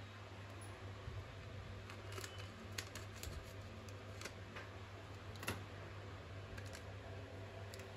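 Faint handling sounds of a foil spice packet being snipped open with scissors: a scattering of short clicks and crinkles over a steady low hum.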